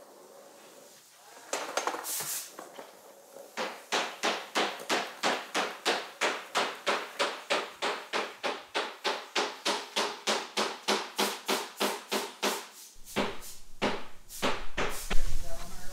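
Footsteps on a hard shop floor, a quick, even run of knocks at about three a second, then a few heavier steps near the end.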